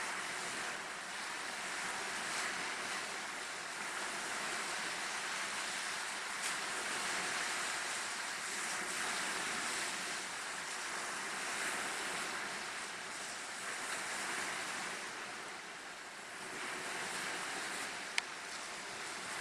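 Choppy waves washing and breaking against a rock jetty in the wind: a steady rushing wash that swells and eases every few seconds. A single sharp click comes near the end.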